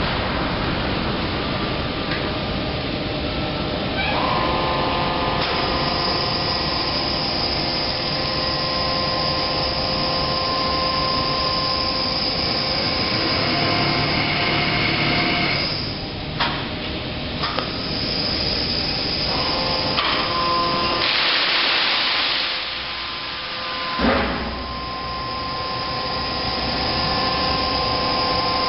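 Wood chip bridge crane with a hydraulic orange-peel grab running: a steady machine whine made of several tones that shift and break off as the crane moves. Past the middle, a rushing hiss lasts about three seconds and ends in a sharp knock.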